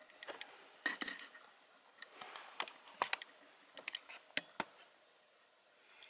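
Faint handling noise: scattered light clicks and brief rustles, about nine small ticks in the first four and a half seconds, then they stop.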